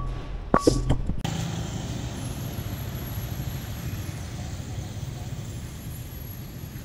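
A couple of short knocks in the first second, then steady city street traffic noise from passing cars.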